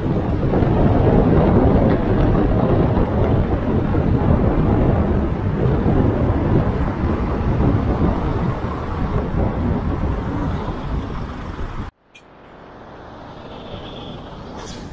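Road noise from a moving car: a loud, steady rumble of tyres and wind. About twelve seconds in it cuts off suddenly, then fades back in much quieter.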